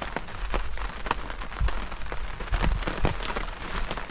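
Steady rain falling on a surface, with many separate drop impacts ticking through it. A few dull low thumps come in near the middle.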